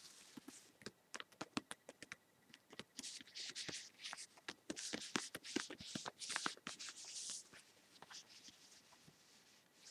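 Faint close-up handling sounds: a quick irregular run of small clicks and taps, with stretches of hissy rustling or scratching in the middle.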